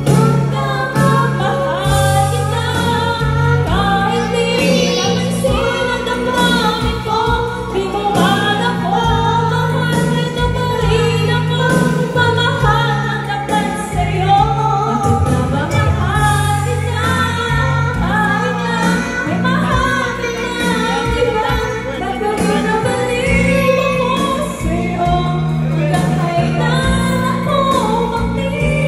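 A woman and a girl singing together into microphones over backing music with a steady bass line.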